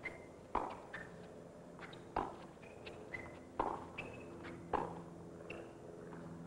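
A tennis rally: the ball is struck back and forth by rackets about every second and a half, four or five sharp hits in all, with lighter ball bounces and short high chirps between the hits.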